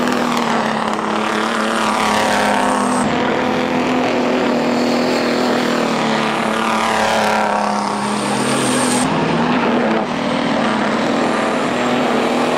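Big-rig racing trucks' diesel engines running hard as several trucks pass close by on the track, the engine pitch sweeping with each pass.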